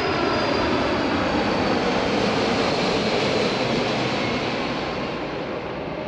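Jet airliner engines running in flight: a steady rush of engine noise with a faint high turbine whine that slowly drops in pitch, fading gently over the last couple of seconds.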